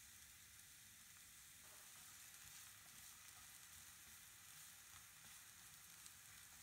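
Faint, steady sizzle of diced onion frying in oil in a frying pan.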